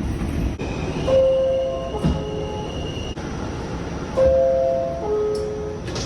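R46 subway car door chime sounding its two-note ding-dong, a higher note then a lower one, twice, about three seconds apart, over the rail car's steady background noise.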